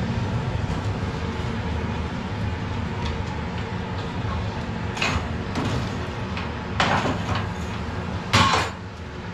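Blacksmith's forge fire running with a steady low rumble, while steel tongs scrape and clank against the hot iron and the fuel in the fire four times in the second half, the last the loudest.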